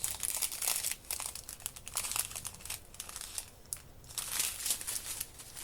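Small plastic bags of diamond-painting drills crinkling as they are handled, in irregular bursts with a short lull about three and a half seconds in.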